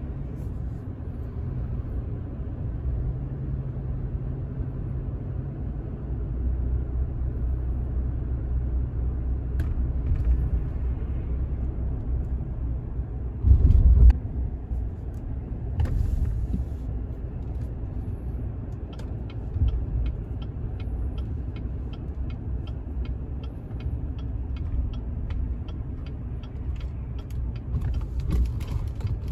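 A car driving at low speed, heard from inside the cabin: a steady low rumble of engine and road noise. A heavy thump about halfway through is the loudest moment, and a regular ticking starts about two-thirds of the way in.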